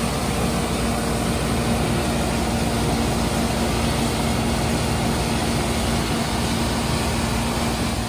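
New Holland combine harvester running steadily at close range while harvesting grass seed from windrows. Its engine and threshing machinery make a loud, even drone with a steady hum, while straw and chaff blow out of the rear.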